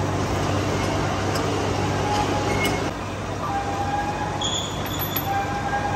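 Large engine lathe running with a steady mechanical hum, turning a heavy steel roller, with short metallic squeals scattered throughout.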